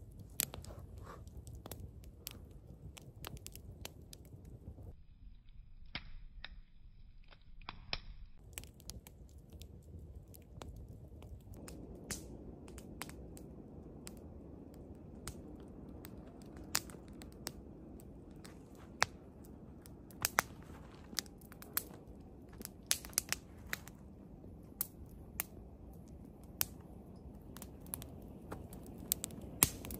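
Footsteps crunching through snow, with many scattered sharp crackles and clicks and a brief quieter stretch about five seconds in.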